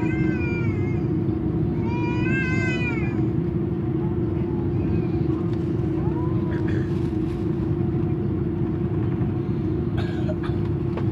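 Steady airliner cabin drone in an Airbus A330-300 with a constant hum. Over it, a high cry rises and falls twice in the first three seconds and once faintly about six seconds in.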